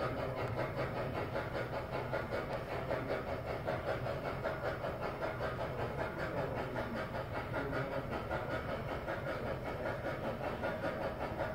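Model train running along the layout track: a steady rumble and hum of wheels and motor with a fast, even pulsing clatter.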